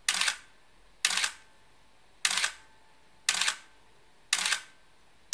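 Nikon F4 SLR firing in single-frame mode: each press gives a short clatter of mirror and shutter with the built-in motor drive advancing the film. It fires five times about a second apart, with a sixth release starting right at the end.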